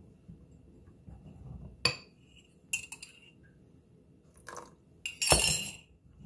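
Metal wire whisk and spoon clinking against a glass mixing bowl while besan batter is mixed: a few separate sharp clinks with a short ring, then a louder, longer rattle of whisking near the end.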